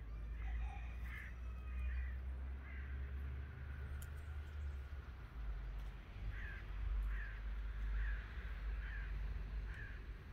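A crow cawing repeatedly: several short caws at the start, then a run of five about a second apart in the second half, over a steady low rumble.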